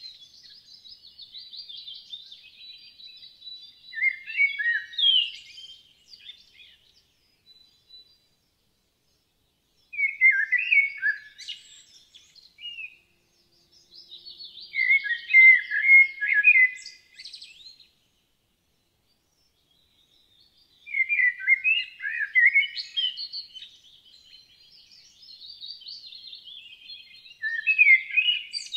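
Common blackbird (Turdus merula) singing: about five song phrases a few seconds apart. Each is a fluted warble of lower notes that runs into a thinner, higher twitter.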